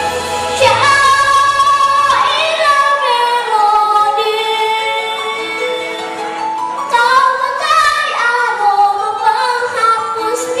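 A young girl singing a slow song into a microphone over instrumental accompaniment, holding long notes that waver with vibrato and sliding between pitches.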